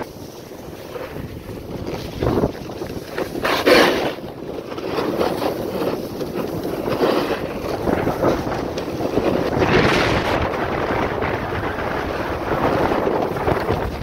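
Wind rushing over the microphone while riding downhill on packed snow, with the scrape of sliding over the snow beneath it; the rushing swells in stronger surges a few seconds in and again past the middle.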